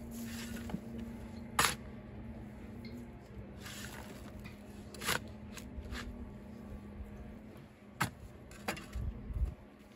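Steel shovel blade striking and scraping into stony soil: a sharp knock about a second and a half in, another around five seconds, and two near the end, over a faint steady hum.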